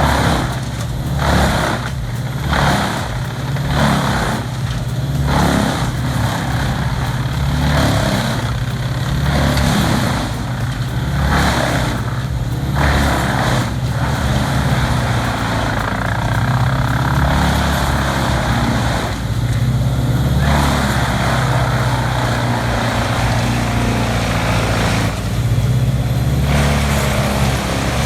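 Large diesel wood chipper running under load. Its engine makes a steady low drone, and the chipping noise comes in regular pulses a bit more than once a second at first, then turns more continuous.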